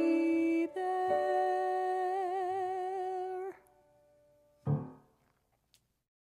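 A male singer holds the long final note of a musical-theatre ballad over sustained accompaniment, his vibrato widening toward the end before the note cuts off. About a second later a short, low final chord sounds.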